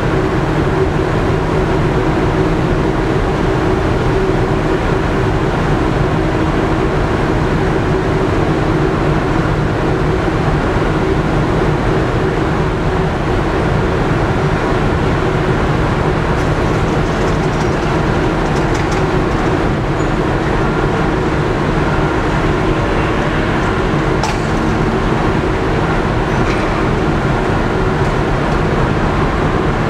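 Steady, loud drone of the ferry Stena Superfast VIII's engines and propeller wash, heard from the open deck as the ship manoeuvres slowly alongside its berth, with a constant low engine hum running through it. A few faint ticks come through about two-thirds of the way in.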